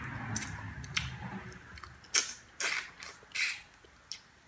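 Mouth sounds of someone eating a cooked turkey neck: chewing, then four short, wet sucking smacks in the second half as the meat is sucked off the bone.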